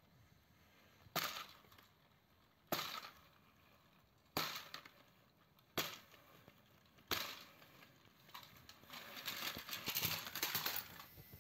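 Hard plastic toy trains clacking on plastic track: five sharp knocks about a second and a half apart, then a couple of seconds of denser clattering as the blue toy steam engine is forced off the track.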